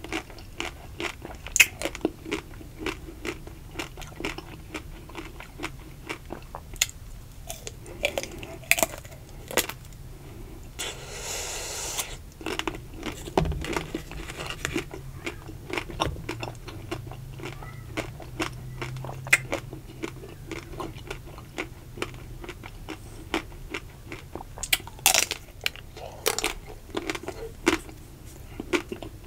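Close-miked bites into the thin ruby chocolate shell of ice cream bars: a steady run of sharp crackling crunches as the coating breaks, mixed with chewing of the ice cream.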